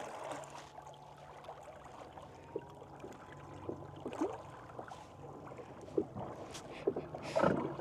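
Electric outboard and trolling motors running: a faint steady whine that rises a little in pitch over the first few seconds, over a low hum, with small scattered splashes of water.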